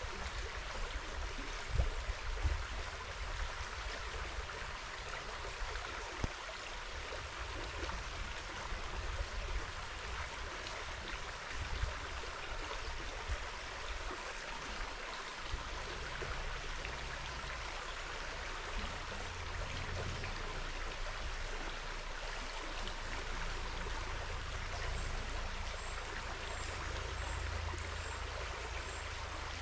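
Steady rush of flowing river water, with a few low knocks and rumbles.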